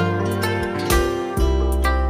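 Drama's closing theme music: a plucked-string, zither-like melody over a held bass line, with sharp note attacks every half second to second.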